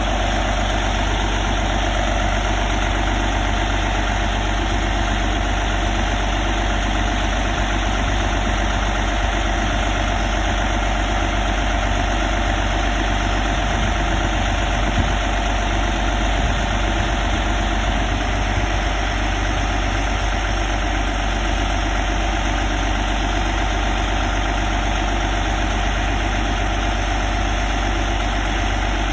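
An engine running steadily at one constant speed, an even drone that doesn't change.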